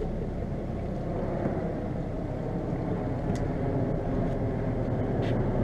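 Boat engine running steadily, a low, even drone, with a couple of light clicks in the second half.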